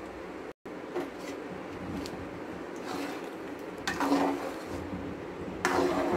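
A steel spoon stirs and scrapes around an aluminium pan of gram flour in hot sugar syrup, with louder scraping strokes about four seconds in and again near the end. This is the stage of mixing besan into the syrup on low flame for Mysore pak, working out the lumps.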